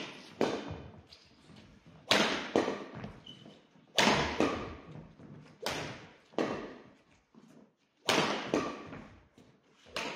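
Badminton racket strings hitting a shuttlecock in a rally, a sharp crack about every two seconds, each often followed by a smaller knock about half a second later, echoing in a large gym hall.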